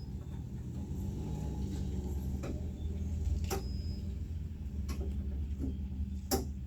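Metal clicks and knocks from a Jeep door latch mechanism being worked by hand, about five sharp ones spread over a few seconds, the loudest near the end, over a steady low hum.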